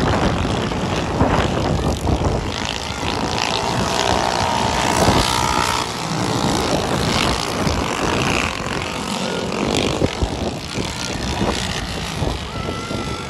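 Racing kart engines running at speed as karts pass on the track, one kart going by close about six seconds in.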